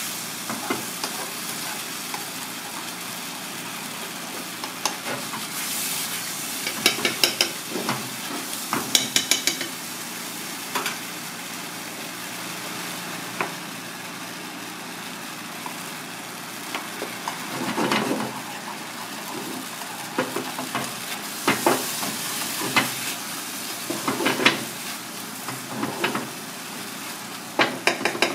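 Sauce sizzling and bubbling in a frying pan over a gas flame, with a metal spoon scraping and clinking against the pan in repeated bursts as it is stirred.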